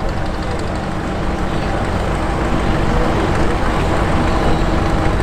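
Engines of vintage International Harvester Farmall tractors running steadily as they drive past in a line, a continuous low engine drone.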